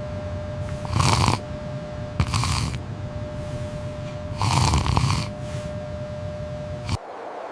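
Snoring: three slow, drawn-out snores a second and a half to two seconds apart, over a faint steady tone. The sound cuts off sharply about seven seconds in.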